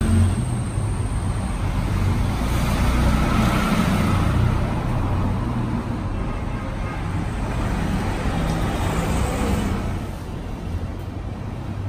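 Road traffic noise: a steady rumble of passing vehicles that swells for a couple of seconds early on and drops quieter about ten seconds in.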